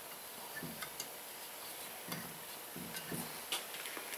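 Faint, irregular light metal clicks and ticks of valves being rocked and pressed in a Honda Ridgeline's cylinder head, testing by feel how much play the valves have in their guides and how they seat.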